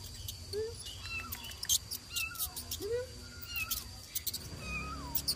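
Kitten mewing in a series of short, mostly falling cries, with frequent sharp clicks as it claws at a tree trunk.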